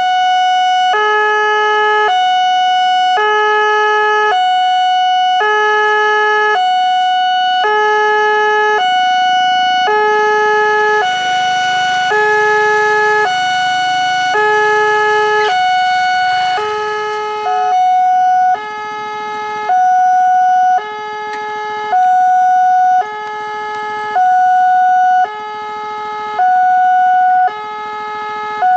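Electronic warning alarm at an Indonesian railway level crossing, sounding a loud two-tone signal that alternates a lower and a higher tone about once a second without a break: the crossing is closed with the barriers down for an approaching train.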